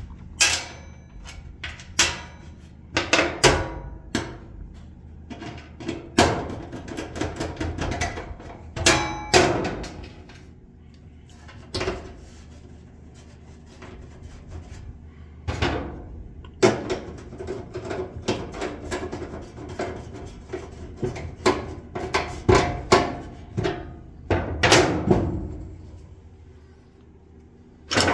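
Irregular clanks, clicks and knocks of hand tools and metal parts being handled against a dryer's sheet-metal cabinet as a new drum support wheel is fitted, some with a short metallic ring.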